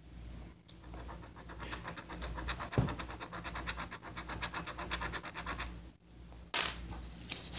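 Pen scratching across paper as words are written: a quick, steady run of short strokes, with two louder scuffs near the end.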